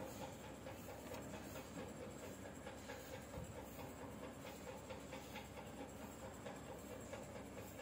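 Faint scratching of a graphite pencil on paper as a sketch is drawn, over a steady low background hum.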